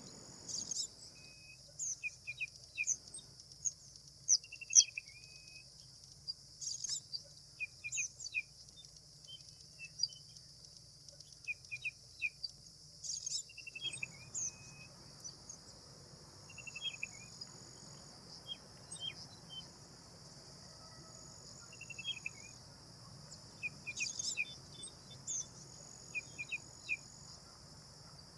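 Short, repeated bird chirps and call notes, some in quick runs of two or three, over a steady high-pitched drone of insects such as cicadas or crickets.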